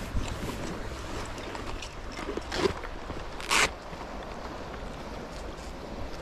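Steady wind rumble on the microphone over the wash of surf, with a brief rustle about three and a half seconds in.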